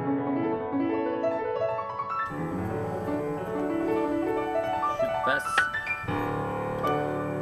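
Background piano music, a melody of separate notes.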